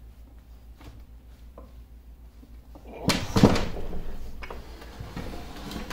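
Heavy cast-iron lathe apron being tipped over and set down on a wooden workbench: faint handling clicks, then a loud clunk about three seconds in and a few lighter knocks.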